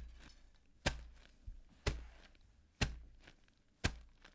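Foley footsteps crunching on snow: five steps at a steady pace of about one per second, each a sharp crunch trailing off briefly.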